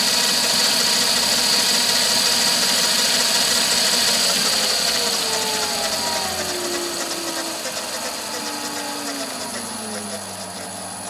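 Smarty AT-300 lathe's belt-driven spindle and its VFD-driven three-phase motor running at top speed, about 1150 rpm, with an uneven sound from the gears that drive the spindle encoder. About halfway through the speed is wound down: a whine falls steadily in pitch and the running gets quieter.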